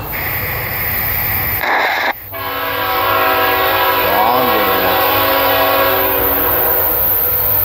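Horn of an approaching CSX freight train, led by a GE ET44AH locomotive, sounding one long steady chord starting a couple of seconds in and ending after about four seconds, over the train's low rumble.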